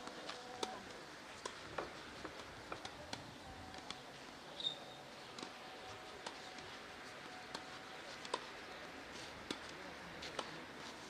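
Tennis rally on a clay court: sharp racket-on-ball hits every second or two, with fainter clicks between them.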